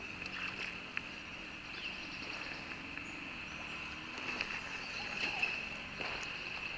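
A steady, high-pitched insect drone, with a few faint clicks scattered through it.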